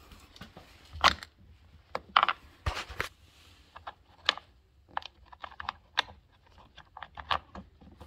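Irregular sharp clicks and taps of a screwdriver and screw against the car's plastic door trim as the last door-panel screws are put in.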